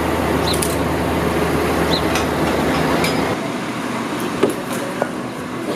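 Heavy vehicle's engine running steadily with a low hum under street noise, which cuts off about three seconds in. After that, a few light knocks as the wooden crate is moved.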